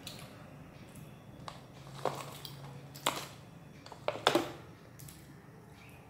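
Close-up eating sounds: chewing and fingers working food, with a few sharp clicks and knocks of ceramic plates being handled. The loudest is a pair of clinks a little after four seconds in, as a side plate is lifted.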